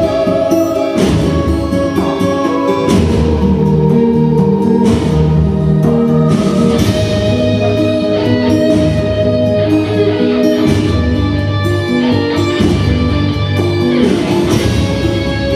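Instrumental song outro: guitar-led music playing steadily, with strummed chords and a bass line.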